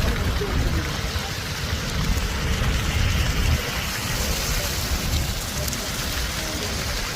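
Steady hiss and patter of heavy, wet snow falling onto surfaces, over a constant low rumble.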